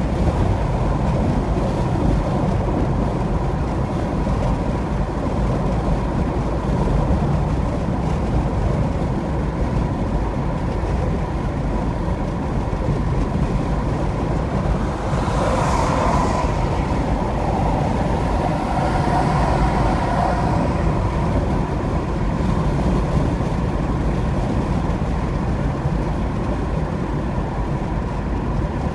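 Car driving at highway speed: steady road and tyre noise with a low engine rumble, and a brief louder hiss about halfway through.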